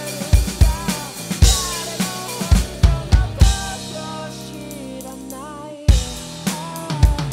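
Roland electronic drum kit played in time with the song's recorded track, kick, snare and rimshot hits under a singing voice. The drums stop about three and a half seconds in while the track holds sustained chords, then come back with a loud hit about six seconds in.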